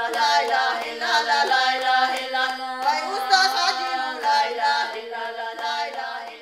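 Traditional-style singing from the Armenian and Azerbaijani song folklore: a winding vocal line over steady held low drone notes, fading near the end.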